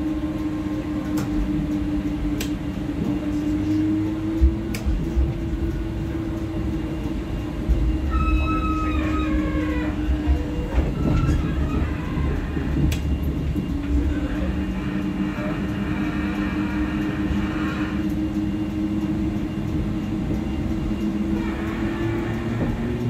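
Interior of a Siemens-Düwag NGT6DD low-floor tram in motion: a steady whine from the drive and a continuous rumble of the wheels on the rails. Brief high squeals come about eight to eleven seconds in, and near the end the whine climbs in pitch as the tram picks up speed.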